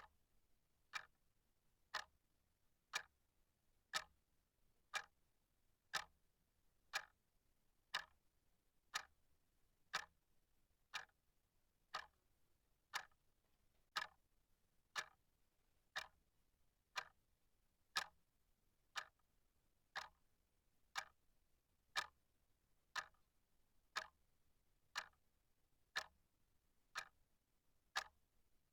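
A clock ticking steadily, one sharp tick each second, with near silence between the ticks.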